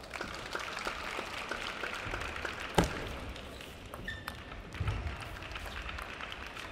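Table tennis ball clicking off the bats and the table during a serve and rally, with sharp clicks a fraction of a second apart, the loudest about three seconds in. A few low thuds come in between.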